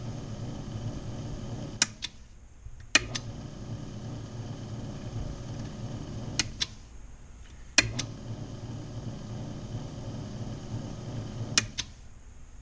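Repaired key machine's electric motor running with a steady hum that sounds good after the repair. Three times a sharp click is followed by about a second in which the higher part of the sound drops away, ended by another click.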